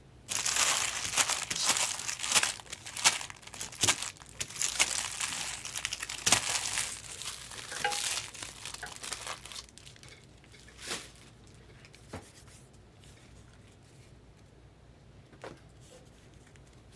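Trading card packs being opened by hand: wrapper plastic crinkling and tearing, dense and crackly for about the first half. After that come a few scattered light clicks and taps.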